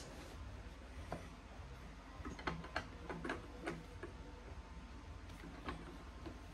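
Faint, irregular light clicks and taps of a pen or pencil working on paper at a tabletop, over a low steady hum.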